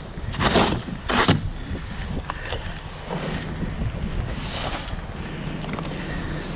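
Snow brush sweeping snow and crusted freezing-rain ice off a car windshield: two quick strokes about half a second and a second in, then fainter brushing, over a steady low rumble.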